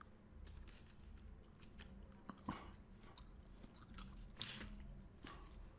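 Near silence: room tone with a handful of faint, short clicks scattered through it.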